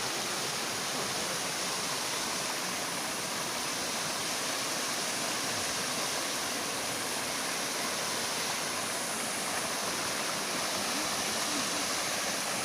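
Small waterfall with a strong flow rushing and splashing steadily, fed from a mountain spring.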